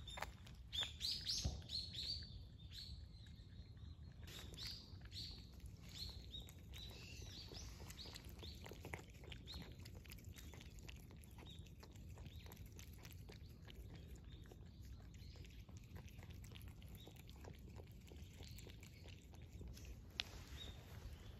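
Two cats lapping milk from a bowl: a steady patter of small wet tongue clicks. Small birds chirp over it, busiest in the first few seconds.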